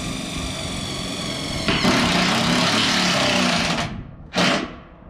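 Cordless drill driving a screw up into a metal roofing panel. A steady motor whine runs for about the first second and a half, then turns harsher and noisier as the screw bites into the metal, and stops about four seconds in. One short burst of noise follows near the end.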